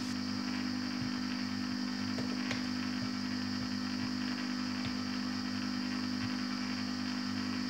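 Lidl electric ice cream maker's motor running empty, just switched on, before the mix is poured in. It makes a steady, even hum with a fainter high whine above it and a few faint irregular ticks.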